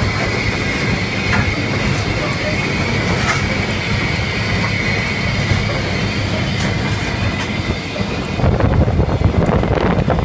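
Cab noise of an LNER B12 steam locomotive running along the line: steady rumble and rattle of the engine and wheels on the rails, with a constant high-pitched tone through it. About eight seconds in, wind starts buffeting the microphone.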